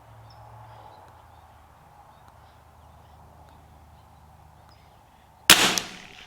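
A single shot from a CZ 457 AT-ONE .22 LR bolt-action rifle firing SK Pistol Match Special ammunition. It is one sharp report about five and a half seconds in, with a short ring-out.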